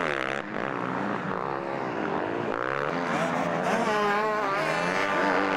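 Several motocross bikes racing, their engines revving up and down as they accelerate and shift gears, with more than one bike heard at once.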